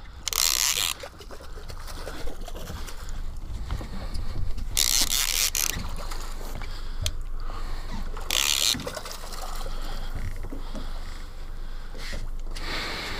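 Boat out on open water: a steady low rumble, broken three times by short bursts of rushing hiss.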